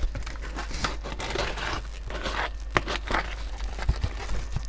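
Plastic packaging wrap around a cardboard parcel crinkling and tearing as it is pulled off by hand, with a few sharp clicks.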